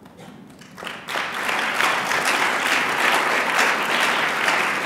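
Audience applauding, breaking out about a second in after a brief hush and holding steady.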